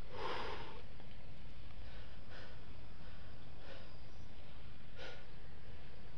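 A climber breathing hard with exertion: a strong breath right at the start, then short hissing exhalations about every second and a half. A steady low rumble lies underneath.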